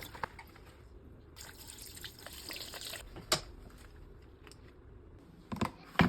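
Water trickling and dripping for a second or so, with sharp small clicks and knocks at the start, about a third of the way in, and a few near the end.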